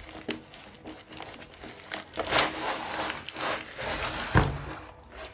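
Packaging crinkling and rustling as a microphone stand arm is unpacked, loudest in the middle, with a single thump about four seconds in.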